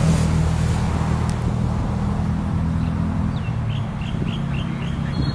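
A steady low engine hum from a nearby motor vehicle or machine, with a bird giving a quick run of about five short, high chirps a little after halfway through.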